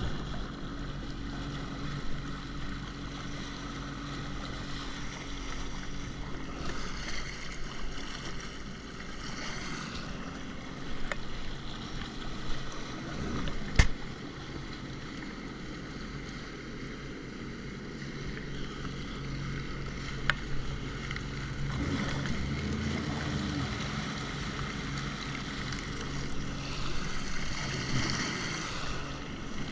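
Jet ski engine running steadily, with wind and water noise. A single sharp knock comes about halfway through.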